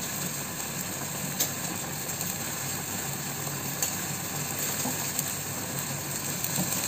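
Metal spoon stirring instant fried noodles in a ceramic bowl to mix in the cheese-chilli seasoning and oil, with a few light clicks of spoon against bowl over a steady low hum.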